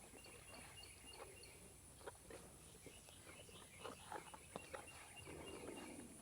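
Near silence: faint outdoor ambience with a thin steady high tone, a few faint chirps near the start and scattered soft ticks.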